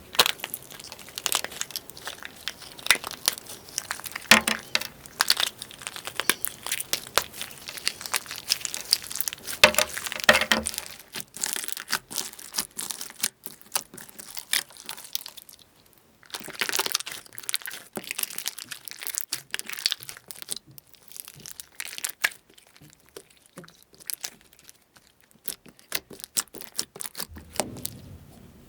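Crackling and crunching of a brittle material being crushed: a rapid, uneven run of sharp cracks, dropping off briefly about halfway through.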